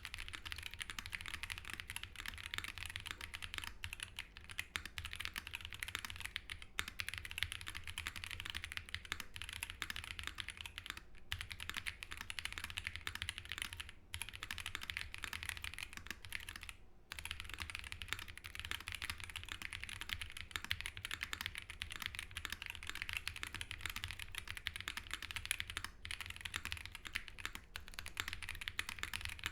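Continuous fast typing on an Ark68 R2 prototype mechanical keyboard with an aluminum plate, Holy Panda tactile switches, GMK Oblivion keycaps and all sound-dampening foams fitted: dense key clacks with a few brief pauses.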